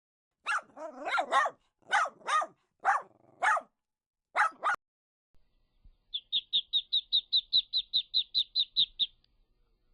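A dog barking: about eight sharp barks in quick succession. After a pause comes a fast, even run of short high chirps, about five a second for some three seconds.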